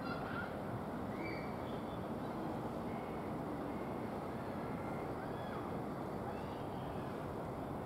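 Steady outdoor background rumble, with a few short high bird chirps scattered through.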